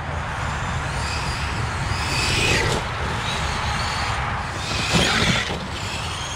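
Electric radio-controlled cars driving off-road over grass and leaf-strewn dirt. Their motors' high whine rises and falls as they accelerate, loudest about two and a half and five seconds in, over a steady low rumble.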